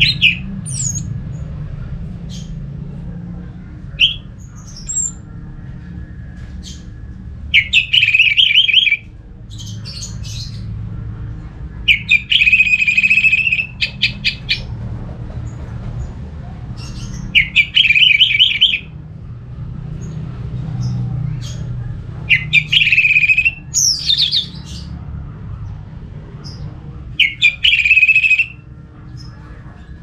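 Orange-headed thrush (anis merah, Geokichla citrina) singing: loud, rapid warbling phrases of about a second and a half, repeated roughly every five seconds, with short single calls in between. A steady low rumble runs underneath.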